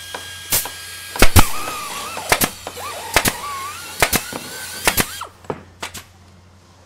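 Electronic outro sound effects: a quick run of sharp snapping hits over synth tones that bend up and down. The loudest hits come a little past a second in, and the sound thins out after about five seconds.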